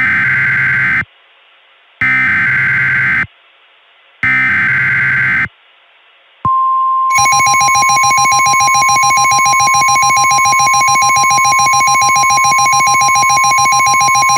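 Emergency Alert System SAME header on weather radio: three short bursts of warbling digital data, each about a second long and about two seconds apart. About six seconds in, a steady alert tone begins; it turns harsher and buzzier a moment later and holds on. This is the alert that announces a severe thunderstorm warning.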